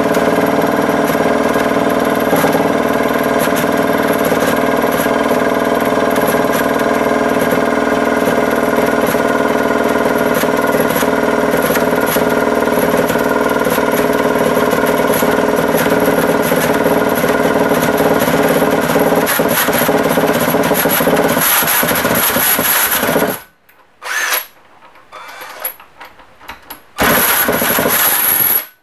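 Cordless drill spinning a 50cc single-cylinder two-stroke engine over through a drill-starter coupling on the crankshaft: a steady, even whine with the engine turning over but not catching, which the builder puts down to low compression, possibly from a head that isn't sealing. The sound stops suddenly about 23 seconds in, and a few short bursts of the drill follow.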